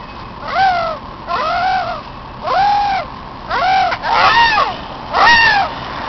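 A person's voice making repeated bird-like squawking cries. There are about six of them, each rising then falling in pitch, roughly one a second.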